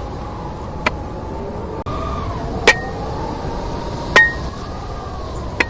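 Sharp metallic clinks, four of them about a second and a half apart, some leaving a short high ring. They sit over a steady hiss and slow rising-and-falling whistling tones.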